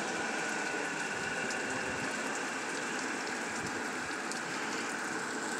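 Steady rain on a truck, heard from inside the cab: an even hiss with faint scattered ticks of drops.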